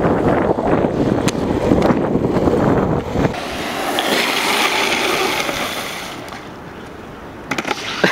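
Wind buffeting the microphone over the rumble of longboard wheels rolling on asphalt, giving way after about three seconds to the higher scraping hiss of a hands-down longboard slide, urethane wheels and a slide-glove puck skidding across the pavement. A few sharp clicks near the end.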